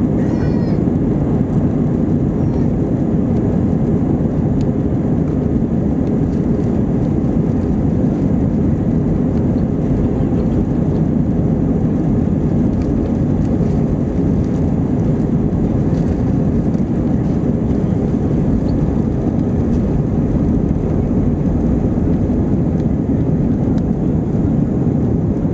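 Cabin noise inside an Airbus A321-231 during the takeoff: its IAE V2500 turbofan engines running at high thrust, heard as a loud, steady, low rumble.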